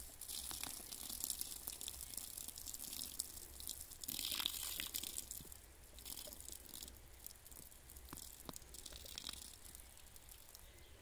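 Onions frying in fat in a goulash cauldron over a campfire: a faint sizzling hiss with scattered small pops, louder for about a second around four seconds in.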